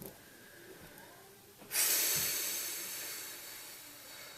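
A long, breathy exhale, a sigh, that starts suddenly a little under two seconds in and fades away slowly over the next two seconds or so.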